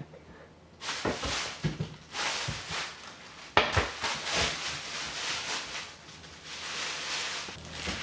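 Thin plastic bag rustling and crinkling in repeated bursts as it is waved about and batted by a cat's paws, with a few soft thumps and one sharp knock about three and a half seconds in.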